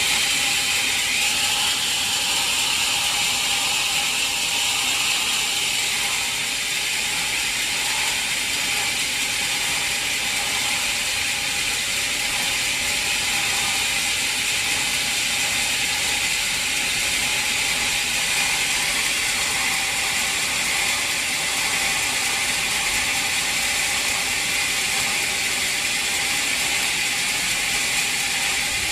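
Sawmill machinery running steadily through a log, a continuous fast rattling noise with no pauses.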